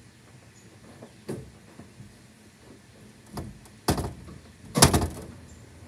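A few scattered knocks and clunks. The loudest comes about five seconds in, a rattling clunk made of several quick hits.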